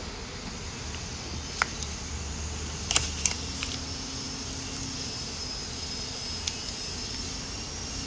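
A few small sharp clicks and taps from a smartwatch and its silicone band being handled, two close together about three seconds in, over a steady background hum.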